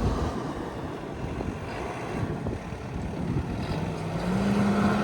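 A motor engine running steadily, its pitch rising a little about four seconds in and then holding.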